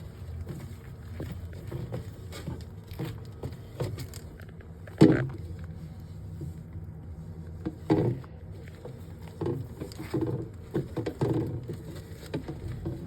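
Irregular clattering and knocks of items being handled and set down during fridge cleaning, over a steady low hum. The loudest knock comes about five seconds in, another sharp one around eight seconds, then a run of smaller knocks.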